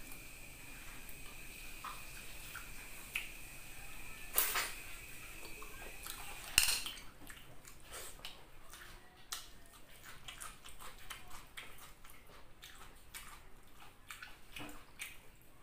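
Close-up wet eating sounds of a person eating snails in coconut-milk sauce with his fingers: chewing, lip smacks and sucking, with many small clicks and a couple of sharper clacks, the loudest about six and a half seconds in.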